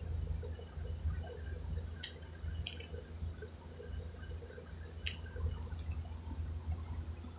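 Handling of a small plastic pepper spray canister and its metal split key ring, with about five light, sharp clicks over a steady low hum.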